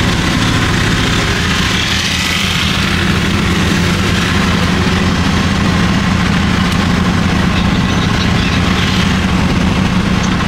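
Auto-rickshaw engine running steadily with an even low drone, heard from inside the cab with a constant hiss over it.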